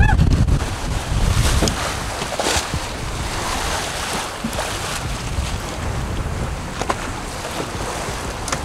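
Wind buffeting the microphone over the rush and splash of water along the hulls of a sailing catamaran under way. The wind rumble is heaviest in the first second, then settles to a steady wash.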